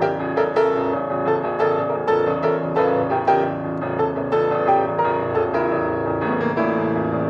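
Piano accompaniment to a silent film, playing a lively run of struck notes and chords. About six seconds in, the low notes shift to a fast repeated tremolo.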